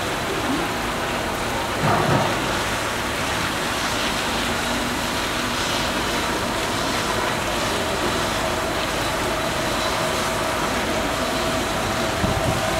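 Heavy squall rain pouring steadily onto a wet paved street and rooftops, a constant loud hiss. A short louder low swell of noise comes about two seconds in.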